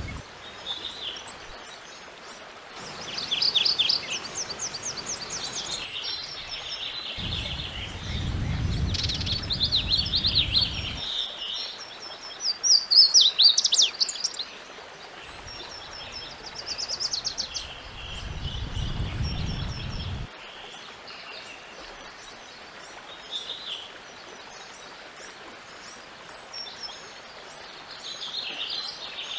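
Songs of several different North American wood warblers, one after another: high, rapid trills and quick chips and slurred phrases, each lasting a few seconds before another song takes over. A low rumble of background noise comes and goes twice.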